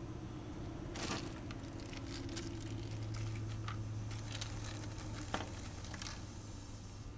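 Faint rustling and light clicks of hands working a rubber connector gasket and stripped wires, over a steady low hum.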